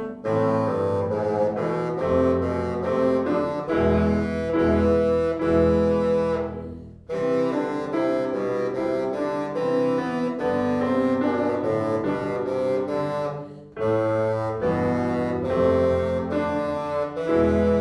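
Bassoon playing a melody with piano accompaniment, the music breaking off briefly twice between phrases, about seven seconds in and again near fourteen seconds.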